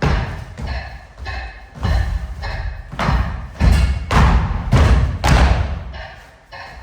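Footsteps crunching through snow, about two a second, each with a heavy low thump on the microphone; the steps fade near the end.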